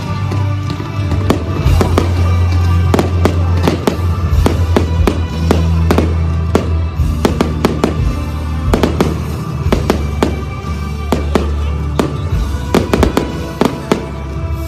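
Fireworks going off in quick, irregular succession, many sharp bangs and crackles, over loud music with a heavy bass.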